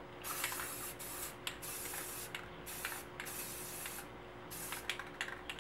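Aerosol can of deep blue gloss spray paint hissing in a string of bursts of about half a second to a second each, with short pauses between and a few quick puffs near the end.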